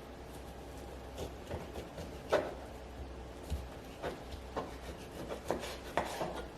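Knife cutting beef short rib meat off the bone on a cutting board: irregular knocks and scraping strokes, the loudest about two seconds in.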